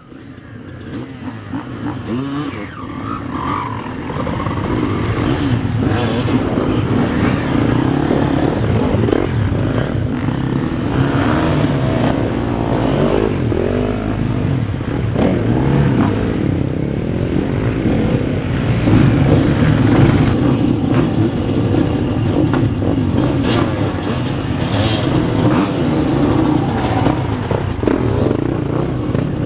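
Several enduro dirt bike engines idling and revving together, with bikes accelerating away one after another and engine pitch rising and falling. The sound fades in over the first few seconds.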